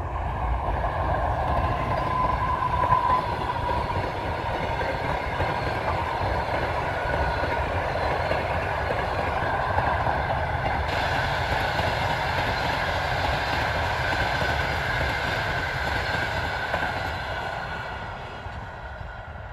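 EP2K electric locomotive and its long passenger train passing close at speed: a steady rumble of wheels on the rails with a high whine over it. The sound dies away near the end as the train draws off.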